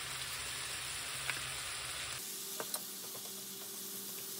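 Bamboo shoots and fiddleheads sizzling in a frying pan with a little broth, with a few light clicks of wooden chopsticks against the pan as they are stirred. The low rumble under the sizzle drops out about halfway through.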